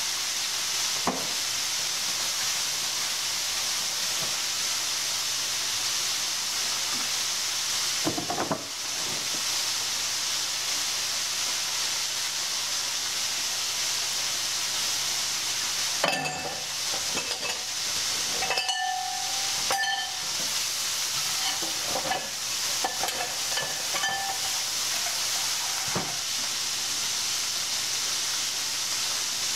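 Battered chicken of the woods mushrooms deep-frying in oil in a cast-iron skillet, a steady sizzle. A few knocks come near the start and near the end, and a run of kitchenware clinks and knocks comes about halfway through.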